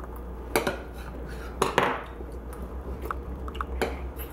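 Metal spoons clinking and scraping against soup bowls, with a few sharp clinks and lighter taps between them.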